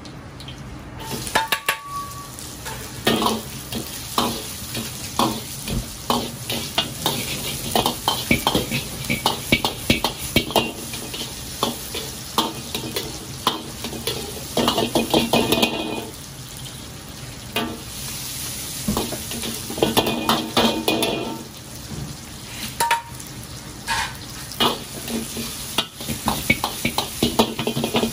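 Oil sizzling in an iron wok as garlic, ginger and dried chillies are stir-fried, with a metal wok ladle scraping and clacking against the pan over and over. The sizzle swells louder twice, about halfway through and again a few seconds later.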